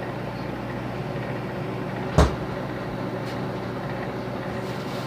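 Microwave oven running with its steady hum while it heats a bar of Ivory soap. One sharp knock about two seconds in.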